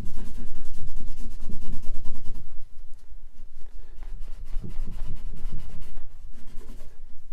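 Cotton rag buffing back and forth over a finished wooden chair leg, wiping off excess soft wax filler from a filled spot. Rapid rubbing strokes, heavier for about the first two and a half seconds, then lighter.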